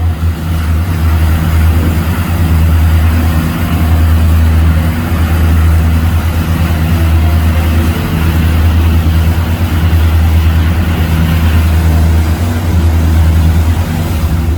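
A sightseeing cruise boat's engine running steadily with a deep hum, under a constant rushing noise of wind and water.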